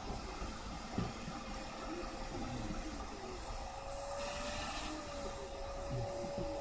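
A small machine running steadily with a hum and hiss, the hiss swelling briefly about four seconds in, and a single knock about a second in.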